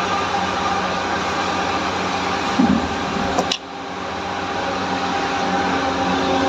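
A steady mechanical hum made of an even noise with several held tones. There is a brief louder sound about two and a half seconds in, and the level drops suddenly about a second later before building back up.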